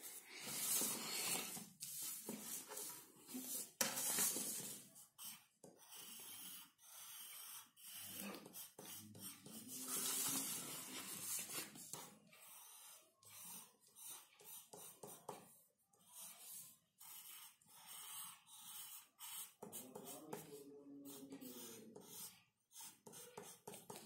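Graphite pencil strokes scratching on drawing paper: irregular bursts of light scratching as the drawing is shaded.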